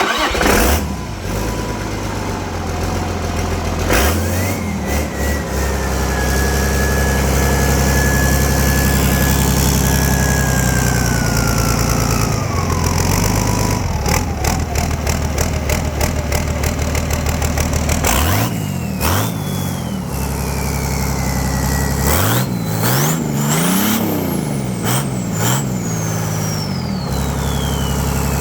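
Freshly rebuilt Volvo Penta KAD42 six-cylinder marine diesel starting and running on its first start after the rebuild. It is revved up and down several times in the second half, and a high whine rises and falls with each rev.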